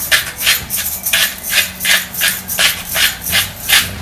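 Hand-twisted salt grinder grinding salt into a bowl: a gritty rasp repeated about three times a second with each twist.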